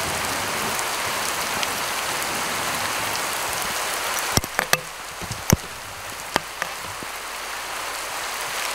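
Steady rain falling in a storm, an even hiss throughout. About halfway through, a quick cluster of sharp taps from drops landing close by stands out above it.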